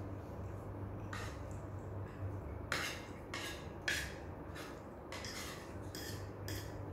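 A spoon and fork clicking and scraping against a plate of fried noodles, in short separate strokes about once a second, the two loudest near the middle, over a low steady hum.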